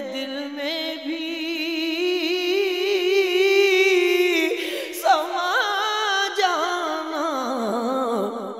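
A man's voice singing a naat unaccompanied, holding long notes with a heavy vibrato; a new, more ornamented phrase begins about five seconds in.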